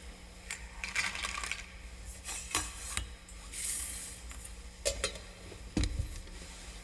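Altar vessels clinking and knocking as they are handled and set down on the altar, about half a dozen sharp metal-and-glass clinks, with a brief hiss about midway, typical of the vessels being cleared or purified after communion.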